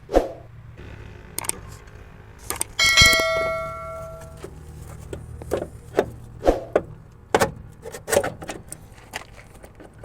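Metal parts and tools knocking and clanking during truck repair work, about a dozen sharp knocks, with one loud clang about three seconds in that rings on for over a second. A low steady hum runs underneath.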